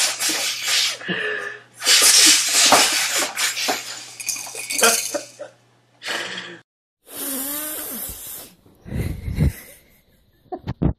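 A man blowing his nose loudly: a long, loud honking blast a couple of seconds in, after the tail of an earlier one. Quieter hiss and a few low bumps follow near the end.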